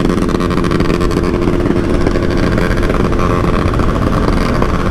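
Yamaha R15 V3's single-cylinder engine running steadily as the bike speeds up on the open road, mixed with wind rushing over the microphone.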